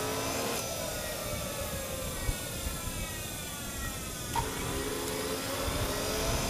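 JetJoe 1400 model turbine engine whining at low throttle, its pitch falling steadily for several seconds. A lower steady motor hum is there at the start, stops, and comes back after a click about four seconds in.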